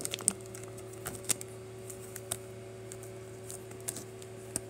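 Clear plastic wrap on a new GAN 356 M speed cube being handled and opened: a few light clicks and crinkles, roughly one a second, over a steady low hum.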